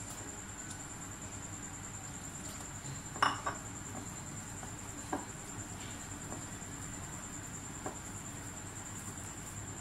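Hands mixing crumbly flour and mashed potato in a glass bowl, with a few light knocks against the glass, the sharpest a double knock about three seconds in.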